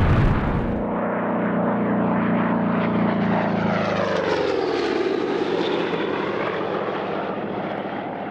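Propeller aircraft engine droning steadily. Its pitch sinks about halfway through and then climbs again as the sound slowly fades. A deep rumble fades out about a second in.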